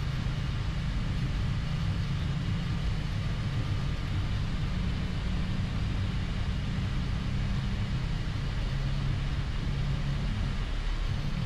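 Boeing 737 MAX flight deck on the takeoff roll: its CFM LEAP-1B engines at takeoff thrust and the wheels rolling on the runway, heard from inside the cockpit as a steady low rumble.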